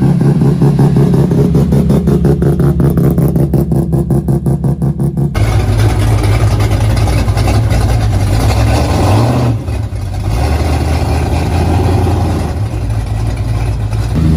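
Engines of modified cars driving out at close range. First an old Mazda hatchback's engine with a loud, fast-pulsing exhaust. Then, after a sudden change about five seconds in, a GMC 100 pickup's deeper engine rumbling, with a short rise in revs about nine seconds in.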